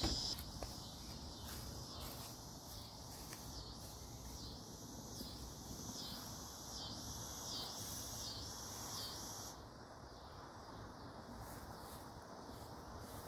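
Faint insects calling: a high buzz that swells and fades about one and a half times a second, cutting off a little past two-thirds of the way through.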